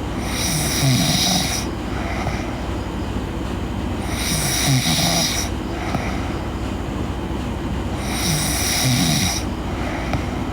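A girl snoring in her sleep: three snores about four seconds apart, each a low-pitched snore with a breathy hiss, over a steady low hum.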